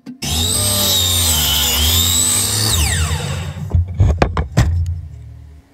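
Miter saw cutting plywood: the motor starts with a high whine that dips in pitch as the blade goes through the board, then falls away as the saw spins down about three seconds in. A few sharp knocks follow.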